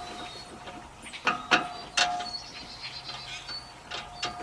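Sharp clicks and knocks of metal hose-reel parts being handled and lined up for fitting, three close together between about one and two seconds in and another near the end, over a faint steady tone.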